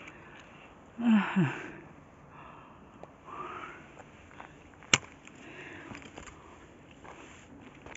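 A person breathing heavily, in soft breaths every second or two. Two short falling vocal sounds come just after a second in, and there is one sharp click near five seconds.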